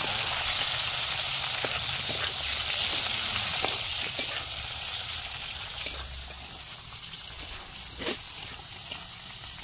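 Fish pieces and bay leaves sizzling in hot oil in a metal kadai, a steady hiss that grows quieter after about five seconds. A few sharp clicks are scattered through it.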